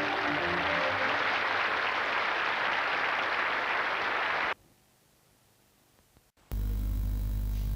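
Audience applause that cuts off abruptly about four and a half seconds in. After two seconds of near silence, a steady low electrical hum starts.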